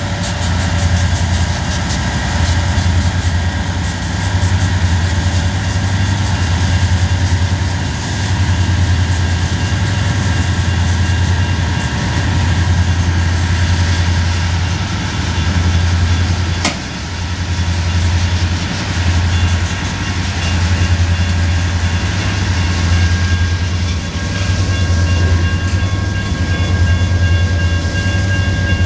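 Loaded coal hopper cars rolling slowly past: a steady low rumble of steel wheels on rail with faint clicking from the rail joints. A single sharp clank about two-thirds of the way through.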